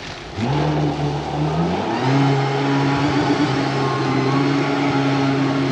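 A marine engine revs up in two steps, about half a second and two seconds in, then runs steady, pulling on a tow line to drag a grounded boat off a mud bank.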